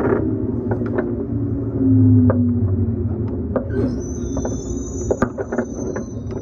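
Onboard running sound of a JNR Series 115-1000 electric train's motor car with MT54 traction motors, slowing down: a steady low rumble with a motor and gear whine falling slowly in pitch, and scattered clicks from the track. A thin high brake squeal joins about four seconds in.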